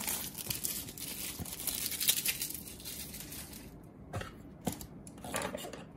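Packaging rustling, crinkling and tearing as a small blank notebook is worked out of its freshly cut wrapper, with two sharper clicks about four seconds in.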